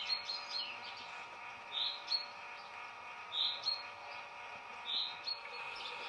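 Common chaffinch calling: a short call repeated four times, about one every second and a half, each followed by a brief higher note.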